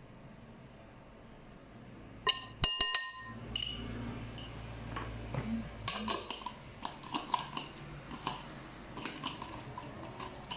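A metal teaspoon clinks twice against glass a couple of seconds in, each with a brief ring. Then comes a run of small irregular clicks and rattles as a glass spice jar of red pepper flakes is handled and shaken over the bowl.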